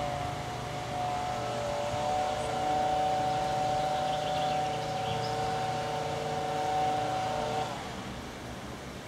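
A motor vehicle's engine running at a steady pitch, with a low hum beneath. It cuts off fairly suddenly about three quarters of the way through.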